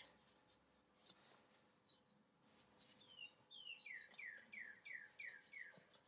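Faint rubbing and scuffing of a cloth rag wiping anti-seize compound off a car's wheel studs and hub. A songbird sings in the background: a run of about eight quick descending whistled notes starting about halfway in.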